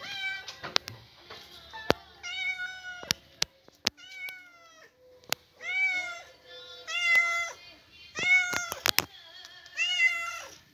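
A grey cat meowing over and over, about seven meows, each rising then falling in pitch. A few sharp clicks fall between the meows.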